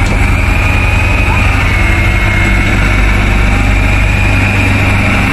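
Electric fishing reel's motor whining steadily as it winds in a hooked fish, the pitch wavering slightly with the load, over the steady low hum of the boat's engine.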